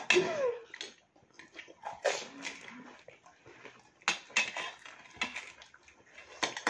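Spoons tapping and scraping against small bowls as pani puris are cracked open and filled with spiced water, in short scattered clicks and splashes.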